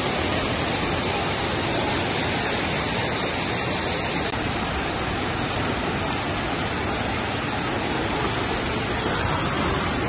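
Sekumpul waterfall: water falling and crashing, a steady, even rush of noise that does not change.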